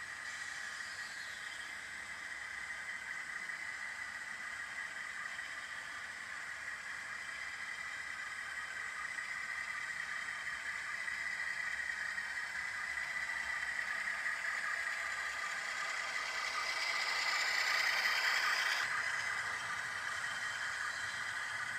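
Model railroad freight train rolling past: a steady whir and clatter of the locomotive motor and wheels on the track. It swells louder near the end, then drops away abruptly.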